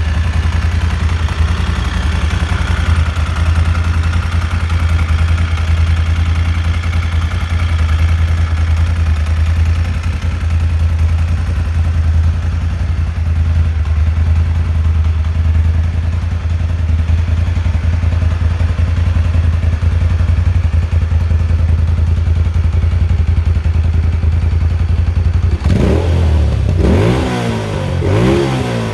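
A 2016 Moto Guzzi Stelvio 1200 8V's transverse V-twin engine idling steadily. Near the end the throttle is blipped a few times in quick succession, the engine note rising and falling with each.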